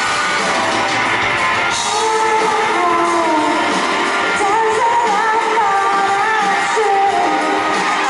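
Live rock band playing, with a woman singing lead over electric guitar; the sung melody bends and slides in pitch. Heard through the venue's PA from the audience.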